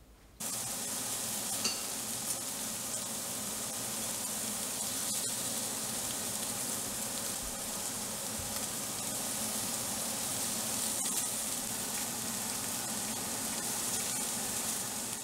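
Pieces of beef steak sizzling on a hot Staub cast-iron grill pan: a steady frying hiss that starts suddenly about half a second in, with a few faint pops.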